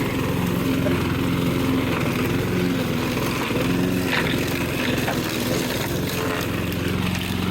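Walk-behind rotary lawn mower engine running steadily under load as it is pushed through tall, thick overgrowth, its pitch wavering slightly as the blade bites into the growth.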